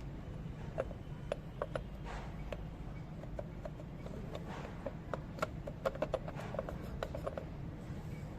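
Irregular light clicks and taps of small metal brake parts being handled, coming thicker in the second half, over a steady low hum.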